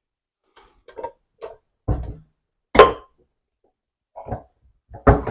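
Drum and fittings of a Lakshmi wet grinder being lifted out and set down: a series of about seven short knocks and clunks, the loudest about three seconds in with a brief metallic ring.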